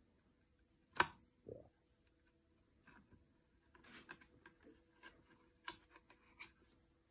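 Light handling clicks and rattles from the plastic flyer and bobbin of an Electric Eel Wheel Nano 2 e-spinner as it is worked by hand. A sharp click comes about a second in, then a duller knock, and later a cluster of small clicks.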